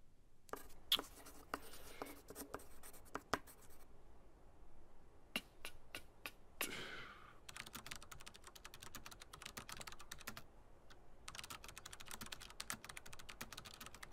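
Typing on a computer keyboard, in two long runs of rapid keystrokes in the second half. Before them come scattered single clicks and a brief rustle about halfway through.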